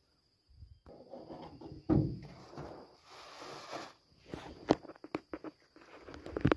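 Irregular footsteps, shuffles and knocks on an aluminium boat's floor, with several sharp clicks and knocks in the second half.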